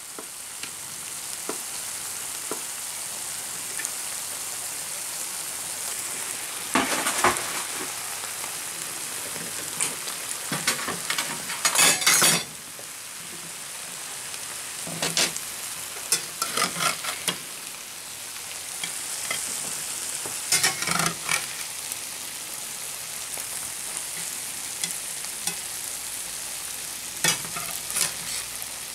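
Fish fillets with onions and olives sizzling steadily in a stainless steel frying pan, with a slotted metal spatula scraping and stirring against the pan in short spells several times.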